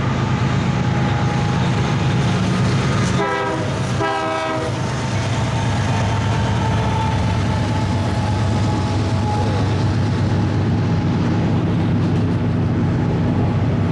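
GE diesel freight locomotives running past with a steady, loud engine drone and wheels on the rails. About three seconds in, the train horn gives two short blasts close together.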